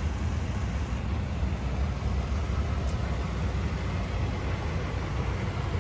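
The 1990 Cadillac Brougham's 5.7 L V8 idling, a steady low rumble.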